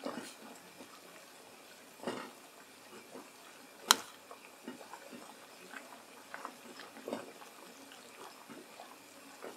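A metal spoon scooping filling from a bowl and spreading it on a slice of soft bread: quiet scrapes and taps, with one sharp clink of the spoon against the bowl about four seconds in.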